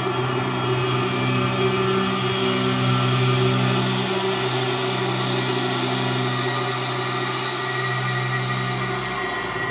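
Synthesized ambient drone: a steady wash of processed noise with held low tones beneath it, made with granular and wavetable synthesis. A deeper low layer comes in near the end.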